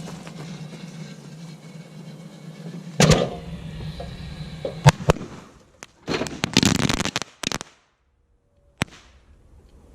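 Fireworks going off inside a shut microwave: a bang about three seconds in, two more around five seconds, a dense crackling burst lasting about a second and a half, a short gap, then one last sharp bang. Under the first half runs a steady low hum that stops partway through.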